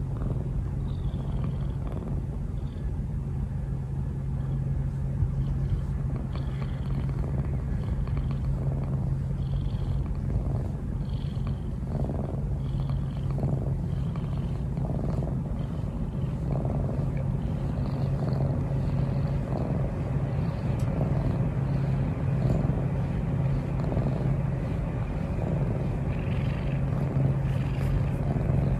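Brown tabby cat purring steadily and continuously, close to the microphone, while being held and stroked.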